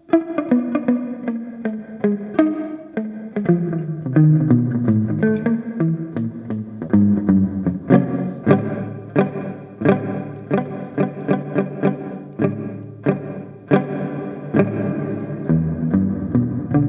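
Electric guitar played through a TC Electronic Hall Of Fame reverb pedal: a run of picked single notes and chords, each ringing on in a reverb tail.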